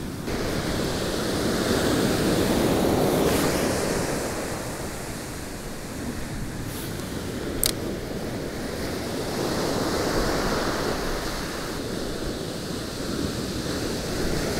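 Heavy surf breaking and washing up a dark gravel beach, swelling and easing in slow waves, with wind buffeting the microphone. A single sharp click about eight seconds in.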